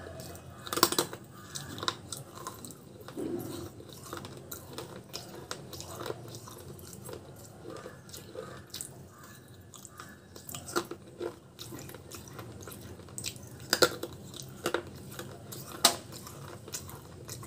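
A person biting and chewing pieces of baked terracotta clay pot: steady grinding chews broken by sharp, irregular crunches as pieces snap off between the teeth, the loudest about a second in and again near the end.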